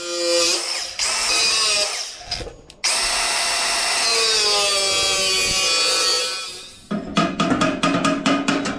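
Milwaukee angle grinder cutting through galvanised steel trunking: the motor whines up to speed, then runs through a long steady cut whose pitch slowly sags under load. Near the end comes a quick run of sharp knocks.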